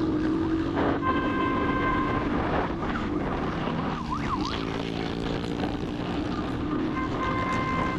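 Motorcycle engine running while riding. A siren fitted to the bike sounds a steady high tone for about a second near the start and again near the end, with a quick falling-then-rising wail in the middle.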